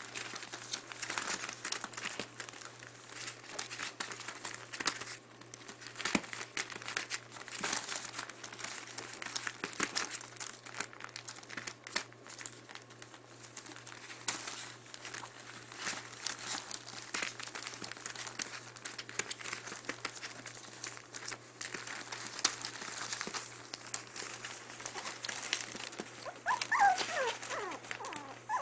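Newspaper lining a puppy pen crinkling and rustling as six-week-old Maltipoo puppies scramble over it. Near the end a puppy whimpers with a few short, wavering high cries.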